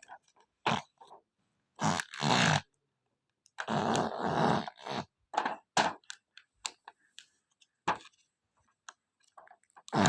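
A small child making grunting vocal noises in several short bursts with pauses between them, the longest about two and four seconds in.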